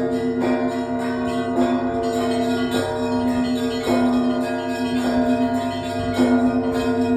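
Russian Orthodox church bell ringing (zvon) from the main bell tower of the Trinity-Sergius Lavra. Small bells are struck in a quick rhythm over heavier bells struck about once a second, and their tones ring on and overlap.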